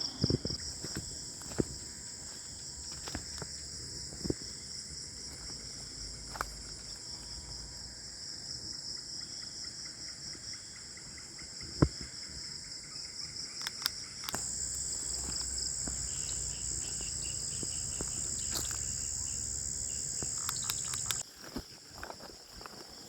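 Night insects chirring in a steady, fast-pulsing chorus. A second, louder high-pitched insect joins about two-thirds of the way in and stops abruptly near the end. A few short clicks and knocks are scattered through it, one sharp one about midway.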